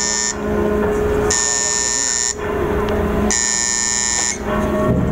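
Warning buzzer of the JS Hyūga's forward aircraft elevator sounding while the elevator moves: one-second buzzes repeating about every two seconds, over a steady low hum.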